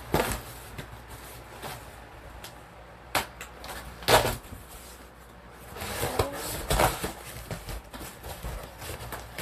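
Cardboard shipping box being torn open by hand: short tearing and crackling bursts of cardboard and packing tape. One comes about three seconds in, the loudest about four seconds in, and a run of them around six to seven seconds.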